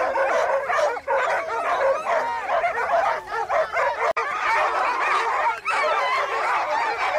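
Hunting dogs yelping and whining excitedly in a continuous chorus of overlapping high cries.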